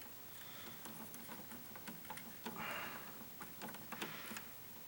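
Faint small clicks and rustles of electrical wires being handled and joined, black wire to black wire, with a short scraping rasp about two and a half seconds in.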